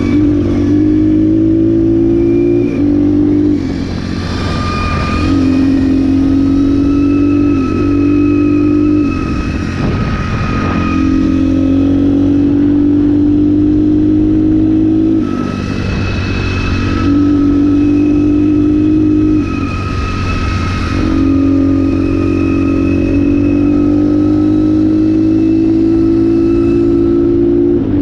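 2019 Apollo 250RX dirt bike's engine running under load on a trail ride, its pitch climbing slowly and then dropping sharply about half a dozen times as the rider shifts or eases off the throttle. Short bursts of hiss come and go over it.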